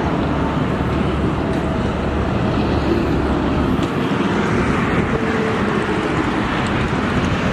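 Steady vehicle noise, a constant low rumble with no distinct events, as from trucks running around a truck yard.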